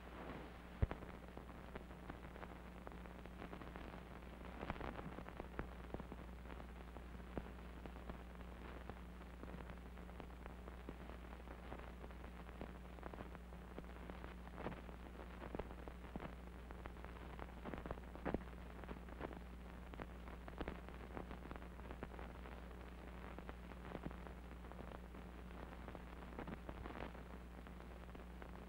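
Old film soundtrack noise: a steady low hum under faint hiss, with scattered clicks and crackles.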